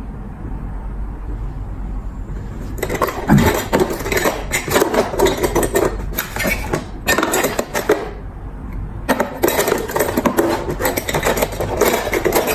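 Scraping and clattering of a small metal lighter insert being worked on with tools. It comes in three busy stretches over a low steady hum.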